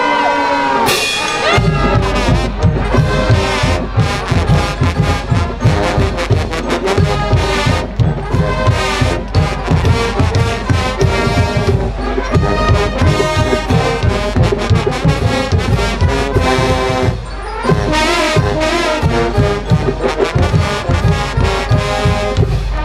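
A marching band's trombones and sousaphones playing a loud, up-tempo feature. It opens on a held brass chord with an upward slide, then a fast rhythmic groove with heavy bass notes and a steady beat kicks in about a second and a half in.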